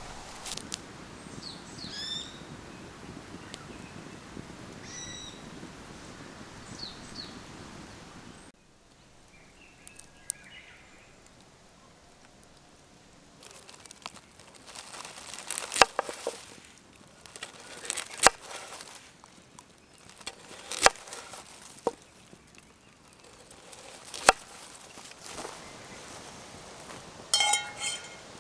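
Birds chirping a few times over a steady outdoor background. About eight seconds in the background drops away, and scattered sharp knocks and clicks follow, several of them loud, with a short clattering burst near the end.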